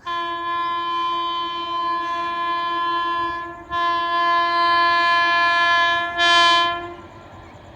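Indian Railways locomotive air horn sounding two long blasts of about three seconds each with a brief break between them; the second blast grows louder near its end, then stops.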